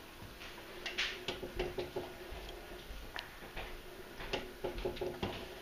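Elliptical trainer's pedal mechanism clicking and ticking irregularly as it moves, over a faint steady hum.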